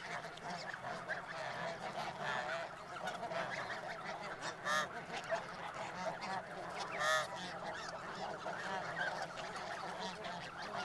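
A flock of snow geese calling, a continuous chorus of overlapping honks, with two louder single honks from a nearer goose about five and seven seconds in.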